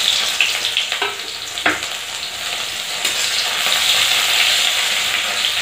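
Freshly added sliced onions sizzling loudly in hot oil in a kadhai, with two short knocks of stirring against the pan about one and nearly two seconds in.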